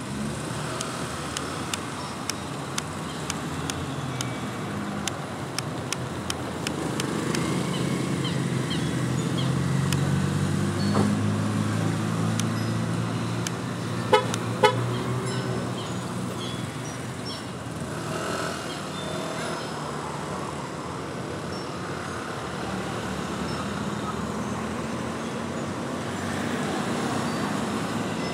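Road traffic: a motor vehicle passes, loudest around ten to fifteen seconds in, with two short horn toots in quick succession about fourteen seconds in. Light clicks tick at about two a second during the first seven seconds.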